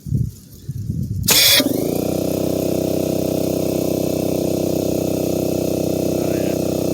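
A brief loud blast of air about a second in, then an electric air compressor starts and runs with a steady hum.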